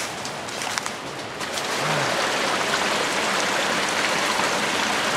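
Steady rushing of flowing water in a jungle stream, with a few faint clicks early on. About a second and a half in, the rush grows louder and fuller and then holds steady.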